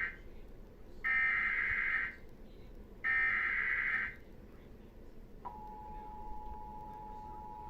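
Two harsh, screeching bursts of Emergency Alert System SAME header data, each about a second long, a second apart. They mark the start of a broadcast EAS alert. About two-thirds of the way in, the steady two-tone EAS attention signal begins and holds.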